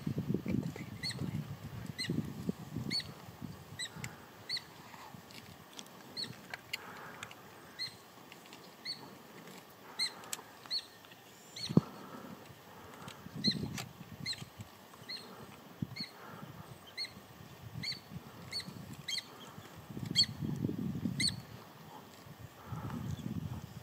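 A bird repeating a short, high call over and over, about one or two notes a second. Low rustling comes in now and then, and there is a single sharp click about halfway through.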